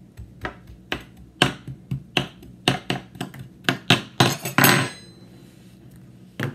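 Kitchen knife chopping down through kinetic sand and knocking on the wooden table, a sharp knock about twice a second, then a longer noisy stroke with a faint metallic ring. One more knock near the end.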